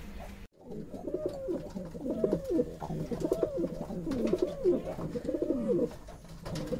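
Domestic pigeons cooing: a run of repeated, overlapping low coos, each rising and falling, starting after a brief silence about half a second in. They pause briefly near the end, then start again.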